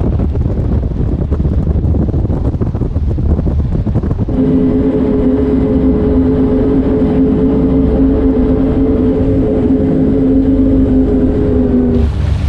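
Wind and water rushing past a speedboat running flat out, with buffeting on the microphone. About four seconds in, the steady high drone of its Mercury Racing 450 outboard engines held at top speed takes over. Near the end comes the hiss and splash of the wake churning beside the outboards.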